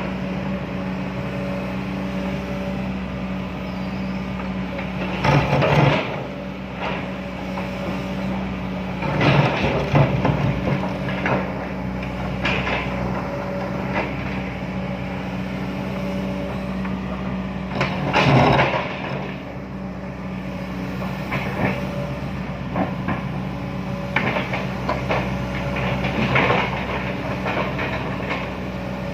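Excavator's diesel engine running with a steady hum, broken several times by short spells of clanking and scraping as the machine works.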